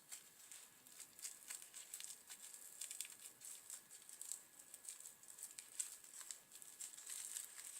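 Faint, irregular crinkling and rustling of packaging being handled, with quick small clicks that grow busier toward the end.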